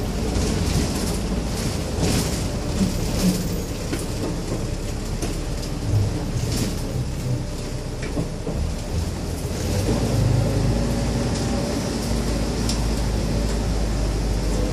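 Cabin noise inside a Hong Kong public light bus on the move: a steady engine and road rumble with frequent rattles and knocks from the body and fittings.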